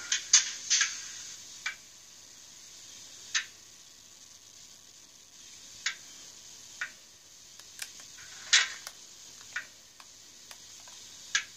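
Small speaker of the DCC sound decoder in an N gauge Farish Class 20 model diesel locomotive, which is standing still: scattered, irregular sharp ticks and clicks over a faint hiss. The hiss drops about two seconds in.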